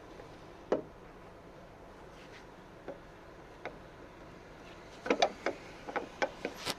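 Sparse light clicks and taps, one about a second in, then a quick run of about seven near the end.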